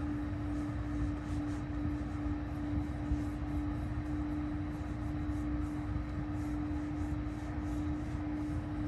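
Steady cabin air noise with a constant hum from the Tesla Model Y's climate blower running in biodefense mode, with faint, repeated soft rubbing strokes of an alcohol wipe on the touchscreen.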